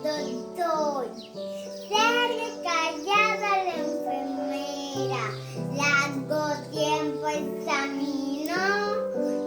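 A child singing a melody over a musical accompaniment of sustained notes and held bass notes.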